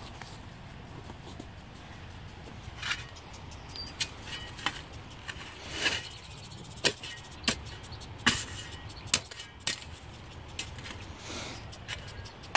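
Spade shovel chopping and scraping into dirt while digging out ground to level it, a sharp strike about every second over a low steady hum.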